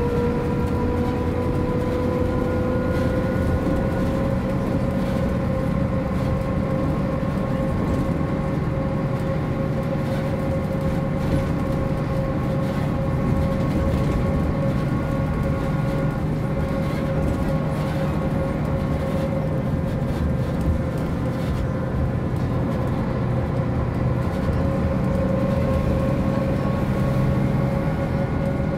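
MAN NG 262 articulated bus under way: its diesel engine drones steadily under a high whine that rises slightly over the first few seconds, then holds.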